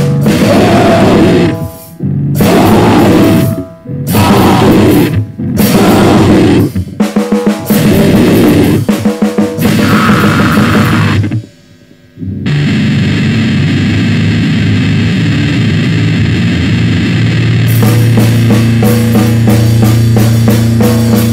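Noisecore: harsh distorted drums and guitar in short stop-start blasts with brief gaps between them. After a near-silent break about twelve seconds in comes a steady, droning wall of distorted noise.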